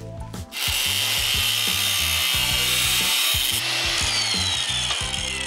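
Angle grinder with a cutoff wheel slicing through 1/8-inch steel strip, a loud steady hiss starting about half a second in. Near the end the grinder winds down with a falling whine.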